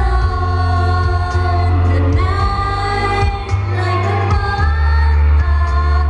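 A female singer singing a pop song live into a microphone over loud amplified pop music with a heavy, steady bass, the sung notes held and gliding.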